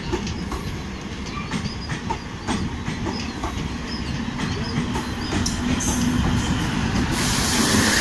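Diesel electric multiple unit (DEMU) train passing close by, its coach wheels clicking over rail joints above a steady rumble. About seven seconds in, a louder, even hiss joins as the power car with its diesel engine and radiator fans comes level.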